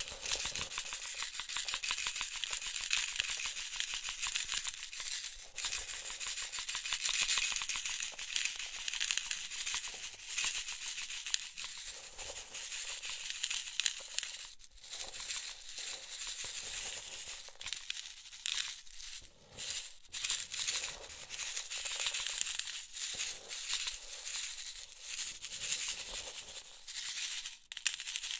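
A box of small metal office pins rattling, the pins clicking densely against each other and the box. The rattle is continuous for about the first half, then comes in shorter bursts with brief gaps.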